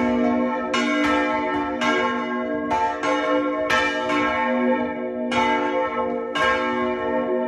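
Somero church's bells ringing. A fresh stroke comes about once a second, and each one rings on into the next.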